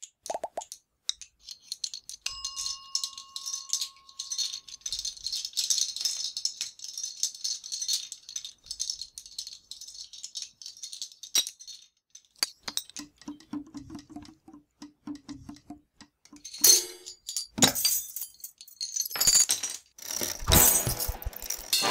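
Long run of toppling dominoes clattering in rapid succession, with a bell ringing once about two seconds in. Midway comes a stretch of evenly spaced, lower-pitched knocks, and near the end louder crashes and clatter as bigger pieces fall.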